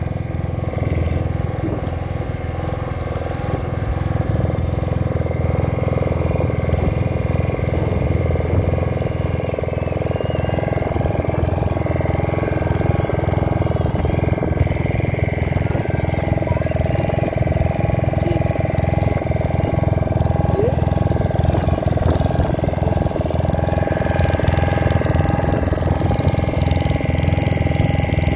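Fishing boat's engine running steadily while the boat is under way, a constant low hum with no change in speed.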